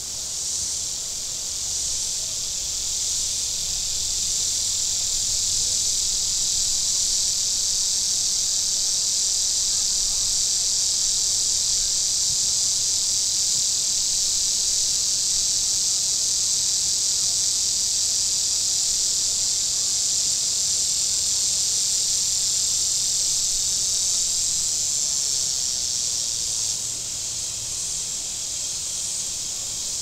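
Chorus of cicadas buzzing steadily and loudly, swelling over the first few seconds and easing off a little near the end.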